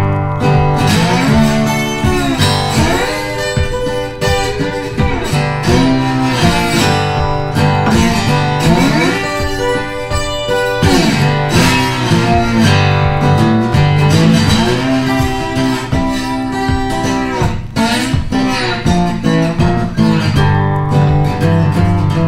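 Background music led by plucked acoustic guitar, with bending notes, playing steadily throughout.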